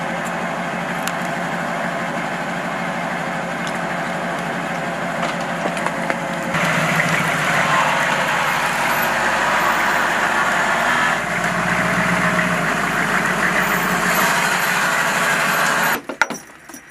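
Military vehicle's diesel engine idling steadily, getting louder about six seconds in.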